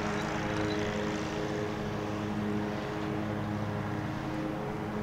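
Engine running steadily: a constant low drone at an unchanging pitch over a steady hiss.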